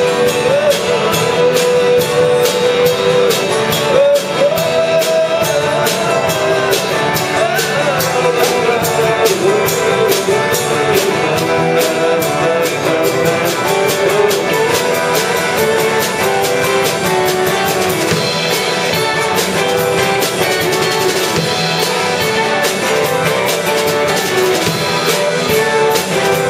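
Live band playing with guitar, drum kit and keyboard at a steady beat, while a lead melody line bends and wavers in pitch over it.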